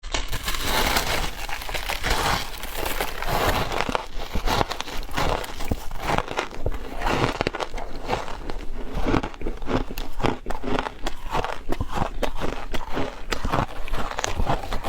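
Shaved ice being eaten close to the microphone: a dense crackling crunch for the first few seconds, then a run of sharp, separate crunches as the ice is bitten and chewed.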